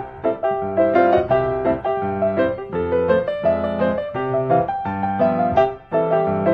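Background piano music: a steady run of separate notes over chords.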